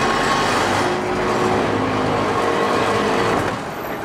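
A city vehicle passing close by, a steady rumble with faint steady tones over it, falling away about three and a half seconds in.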